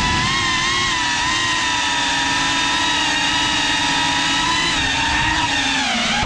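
5-inch FPV quadcopter's electric motors whining steadily at high speed, the pitch wavering a little with throttle and falling away at the very end as the throttle is cut.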